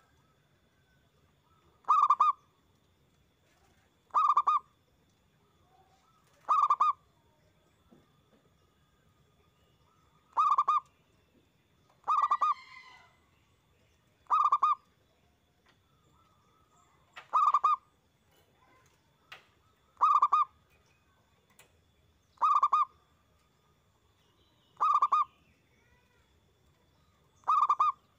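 Zebra dove (perkutut) cooing its song, a short run of quick pulsed coo notes repeated about every two and a half seconds, eleven times in all.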